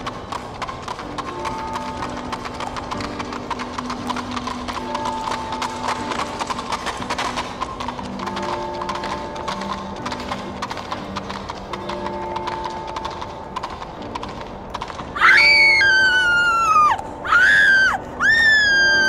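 Sound-design bed of slow background music with held notes over a continuous patter of horse hooves clip-clopping. About three-quarters of the way through, a horse whinnies loudly three times in quick succession, each call rising and then falling in pitch.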